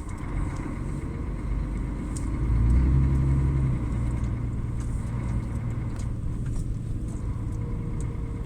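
Vehicle engine and road noise heard from inside the cab while driving: a steady low rumble that swells for a second or so about two and a half seconds in, then settles back.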